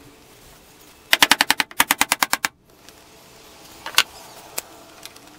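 A hand tool rapping quickly against the window frame: two short runs of about seven sharp taps each, some ten a second, starting about a second in. About a second and a half later comes a single sharp click.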